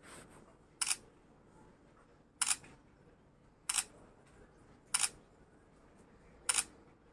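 Camera shutter clicks, five of them at uneven gaps of about a second or more, each short and sharp.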